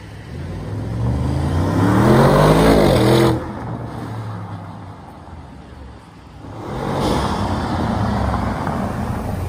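Audi RS6 C8 twin-turbo V8 accelerating hard, its pitch climbing for about three seconds before breaking off abruptly. Near the end the engine sound builds again as a car pulls away.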